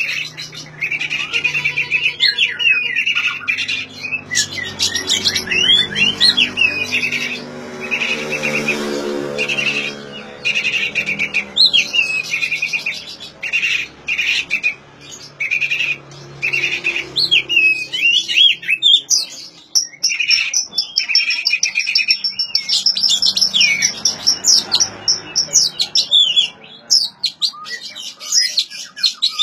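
Oriental magpie-robin (kacer) singing: short, varied whistled and chirped phrases repeating about once a second, with a high, drawn-out trill a little past the middle.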